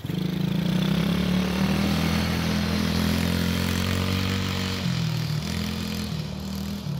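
Small 125cc ATV engine running steadily as the quad is ridden across grass, its pitch dipping briefly about five seconds in, then steady again a little quieter.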